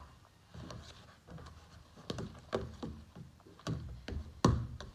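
Freshly made fluffy slime of glue, shaving foam and borax being kneaded and pulled by hand, giving irregular sticky clicks and pops, the loudest near the end.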